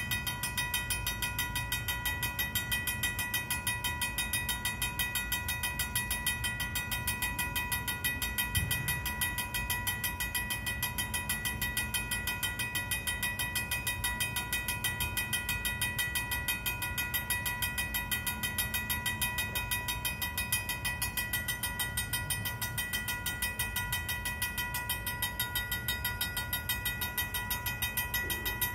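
Vintage mechanical railroad crossing bell ringing fast and without a break, its evenly spaced strokes blending into a sustained metallic ring. It keeps ringing because a stalled freight train is holding the crossing active.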